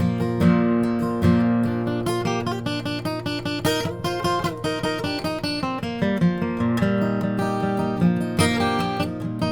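Acoustic guitar playing an instrumental break: a quick picked melody over steady bass notes.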